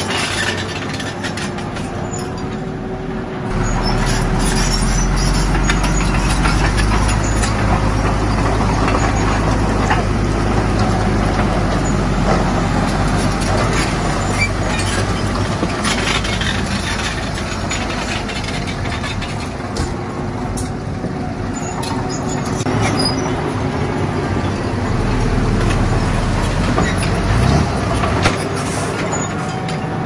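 Diesel engines of a small crawler bulldozer and a dump truck working under load, with scattered clanks. The engine sound grows louder and deeper about three and a half seconds in and eases off near the end.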